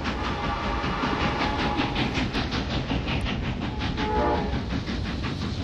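A steam train running past at speed, with a rapid, even beat of about six a second over a heavy rumble. A short whistle sounds about four seconds in.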